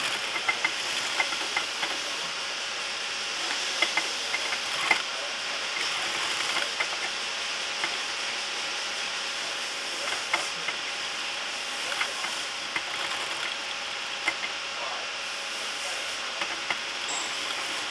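Industrial post-bed sewing machine stitching a leather boot upper: a steady running noise with scattered, irregular clicks from the needle and feed.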